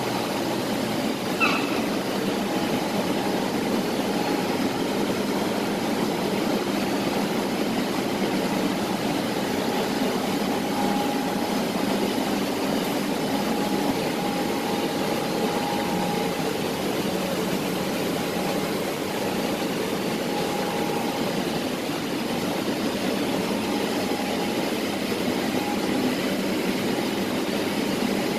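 Industrial shallot and garlic frying machine running: a steady mechanical drone from its motor-driven stirring arm turning through the frying batch. A short high chirp about a second and a half in.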